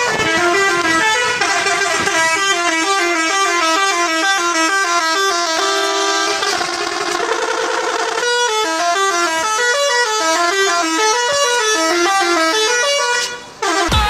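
Indonesian 'telolet' bus horn, a multi-tone musical horn, playing a quick tune of stepped notes, with one longer held note partway through. It breaks off near the end.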